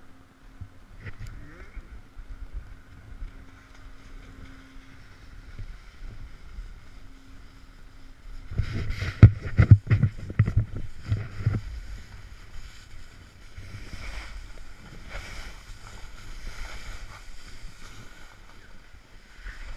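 Snowboard sliding over snow with wind rumbling on the microphone. About eight seconds in it gets much louder for a few seconds, a run of knocks and rumbles as the board picks up speed downhill, then it settles to a steady hiss of the board on snow.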